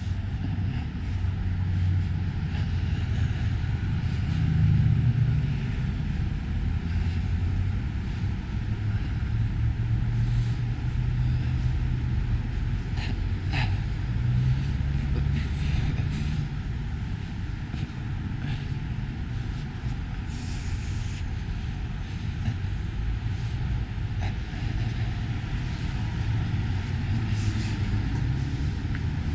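Low, steady rumble of city street traffic.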